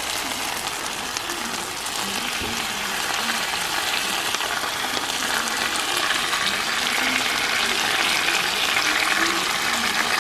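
Stuffed chicken breasts sizzling in a hot frying pan as buffalo sauce goes on; the sizzle grows louder about four seconds in.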